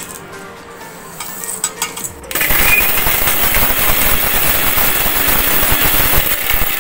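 Electric mixer grinder (mixie) switched on about two seconds in, running loud and steady as it grinds whole spices (cinnamon, cardamom, cloves, fennel, poppy seeds) into biryani masala powder. Before it starts, a few light clinks as the spices go into the jar.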